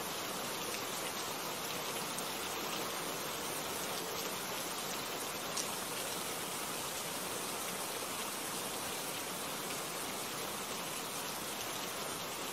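Steady rain falling: an even, unbroken hiss of drops, with one slightly louder drop tick about five and a half seconds in.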